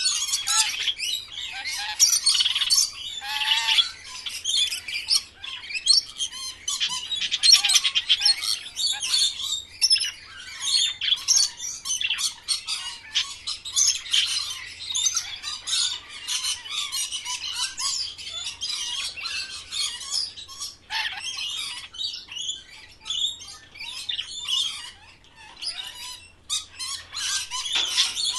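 A flock of parrots chattering and squawking without pause, a dense tangle of high chirps, whistles and harsh calls, some louder squawks standing out.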